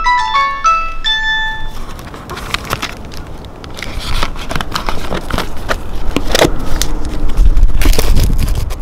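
A Nokia 3310 mobile phone plays a ringtone melody of quick electronic notes, which stops about two seconds in. Then come clicks and crackles from the phone's cardboard-and-plastic box being handled, with a low rumble that is loudest near the end.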